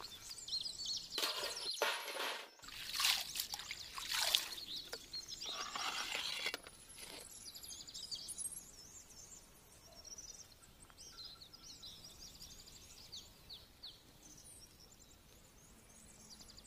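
Bursts of scraping and rustling as a wooden spatula stirs a thick grated mixture in a metal pan. About seven seconds in this gives way to faint birds chirping, many short high calls.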